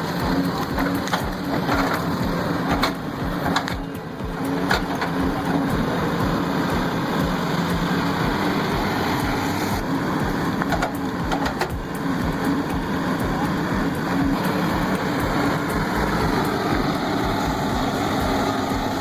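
Excavator engine running steadily under load, with scattered sharp knocks and cracks as it works at a tree stump and cuts through its roots.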